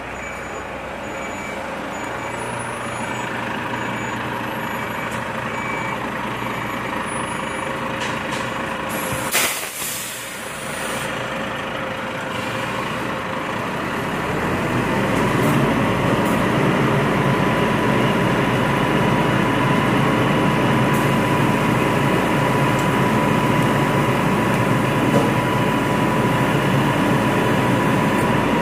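Volvo FM 370 refuse truck's diesel engine running, with a reversing alarm beeping at a steady pace for the first six seconds or so and a sharp air-brake hiss about nine seconds in. From about fourteen seconds in the engine grows louder and fuller, and a steady whine joins it.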